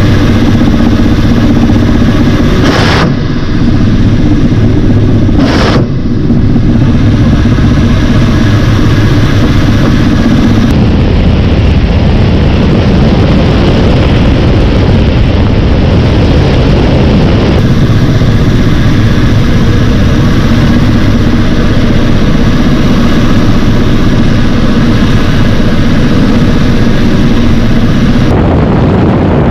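Ka-52 Alligator attack helicopter in flight: the loud, steady drone of its twin turboshaft engines and coaxial rotors. Its character changes abruptly several times as the recording switches between cockpit and outside microphones.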